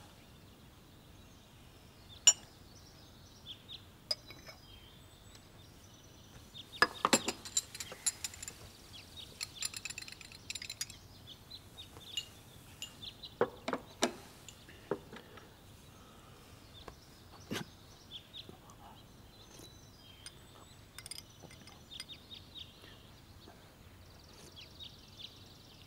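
Porcelain cup, lid and spoon clinking: scattered light clinks and taps, with a busy run of them about seven to eleven seconds in and a few more around fourteen seconds.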